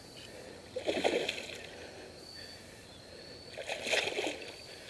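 A big hooked bass thrashing and splashing at the water's surface while being played to the boat, in two short bursts, about a second in and again near four seconds.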